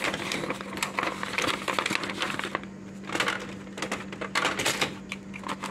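Handling noise: paper rustling and plastic clicks and scrapes as toner cartridges are handled in the drum unit of a Brother colour laser printer, over a steady low hum.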